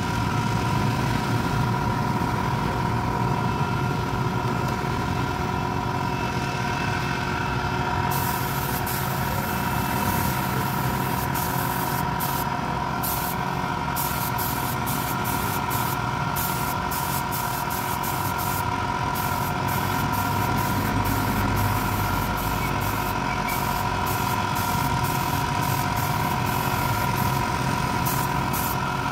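Air compressor running steadily with a constant hum. From about eight seconds in, a spray gun hisses in many short bursts as stain is sprayed onto a wooden chair.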